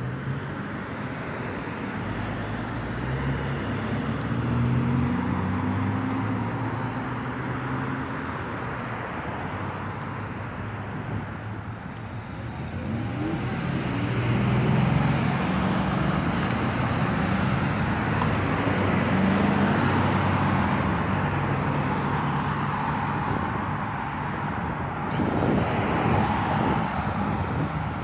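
Road traffic: vehicles driving past with a low engine and tyre hum that swells twice as they go by, with wind buffeting the microphone.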